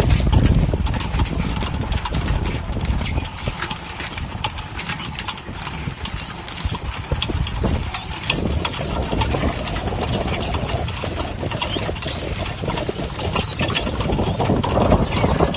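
Automatic squid jigging machine running, its jigs and line clattering over the rollers and drum in rapid, irregular clicks as squid are hauled aboard, over a steady low engine rumble.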